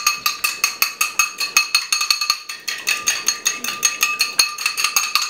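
A raw egg being beaten by hand in a small glass bowl: the utensil strikes the glass in a fast, even rhythm of about six clinks a second, and the bowl rings between strikes.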